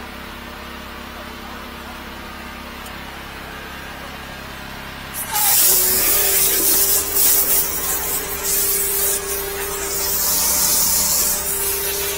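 A 13-horsepower high-pressure drain jetter. Its engine runs with a steady hum, then a little over five seconds in the water jet cuts in with a loud, continuous hissing spray and a steady whine underneath, the nozzle blasting water out of the drain opening.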